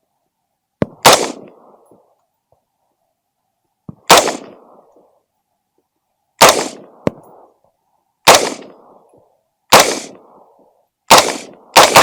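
A home-built AR-15 rifle fired in single shots, about seven in all, spaced one and a half to three seconds apart. Each shot has a short rumbling echo after it. The last two shots come close together near the end.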